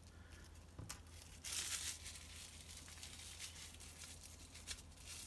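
Bubble wrap crinkling and rustling as it is handled and searched for loose pieces, with a click about a second in and a louder stretch of crinkling about one and a half seconds in.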